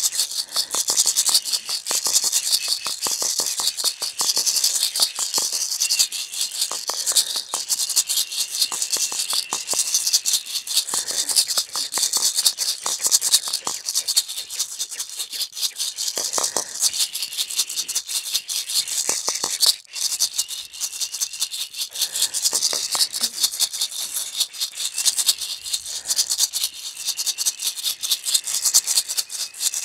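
A pair of gourd rattles shaken steadily around a person's head, a dense, fast, high-pitched rattling. There is a brief pause about twenty seconds in.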